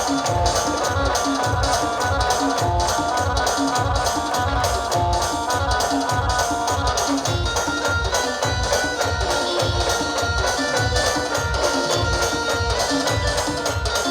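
Band music with no singing, an instrumental break: a steady bass drum beat about twice a second under a melody line, with jingling percussion on top.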